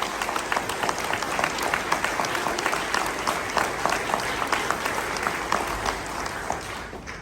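Audience applauding with many hands clapping, dying away shortly before the end.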